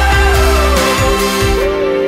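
Background music: a melody line over steady tones and a deep bass, with the bass and the highest sounds dropping away about one and a half seconds in.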